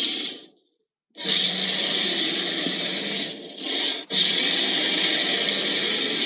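Loud, harsh rushing hiss in stretches. The first cuts off abruptly, there is a second of silence, then the hiss returns, dips briefly and breaks off in a sharp cut before going on again.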